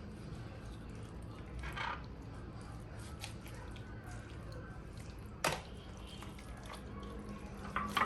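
Kitchen sounds: a brief watery splash or drip about two seconds in and two sharp knocks, one past the middle and one at the end, over a steady low hum.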